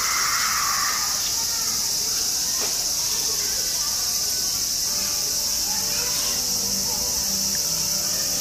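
Steady, high-pitched insect chorus, with a short louder sound in the mid range about a second in and faint held tones coming in about halfway.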